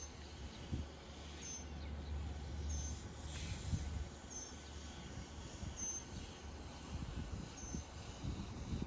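A small bird's short, high chirp repeating about every second and a half, over a low outdoor rumble with some buffeting on the microphone. A brief hiss comes about three seconds in.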